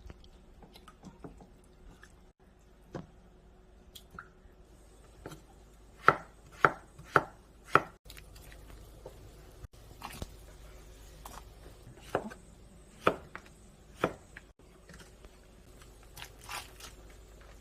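Knife chopping on a cutting board in scattered strokes, with a run of four loud chops about half a second apart midway through and a few single chops after.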